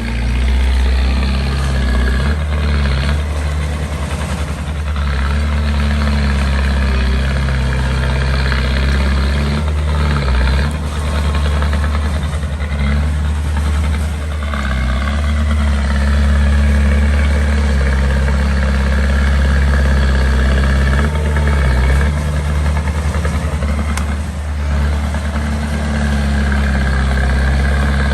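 Small bulldozer's diesel engine running steadily under load as it pushes sand, its note shifting a few times.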